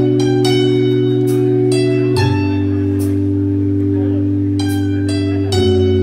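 Live band music: held low chords that shift about two seconds in and again near the end, under high chiming notes that ring out and fade one after another.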